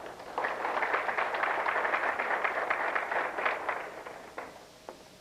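Audience applauding for about three and a half seconds, then thinning out to a few scattered claps.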